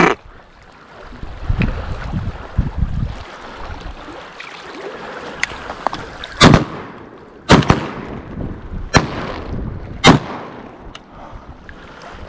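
Four shotgun shots fired at decoying goldeneye, about one to one and a half seconds apart, in the second half. Before them, wind rumbles on the microphone and water laps among shoreline rocks.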